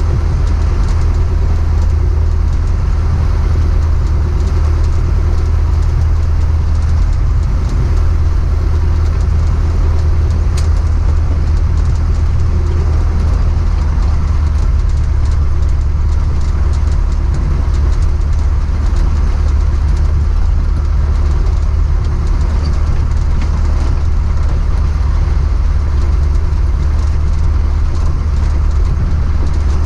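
Piper PA-38 Tomahawk's four-cylinder Lycoming O-235 engine and propeller running steadily at low taxiing power, heard from inside the cockpit as a loud, even drone.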